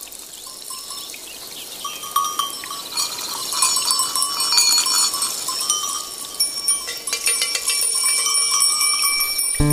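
Many small livestock bells tinkling and clanking, as from a flock of sheep or goats, growing steadily louder as in a flock drawing near. Just before the end the band comes in loud, with strong low notes.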